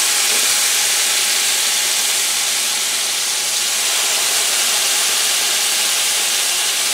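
Marinated venison backstrap pieces frying in hot butter in a skillet: a loud, steady sizzle as more pieces are laid into the pan, which the cook calls a little too hot.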